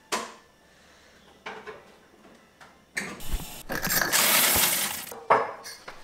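Clicks and clinks of cup and machine parts at a bean-to-cup coffee machine. A loud rushing noise from the machine runs for about two seconds in the middle, and a sharp clink comes near the end.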